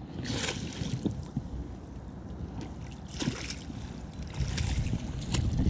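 Water splashing against the side of an inflatable boat in short bursts, three times, the last one longest, with a few small clicks, over a low rumble of wind on the microphone.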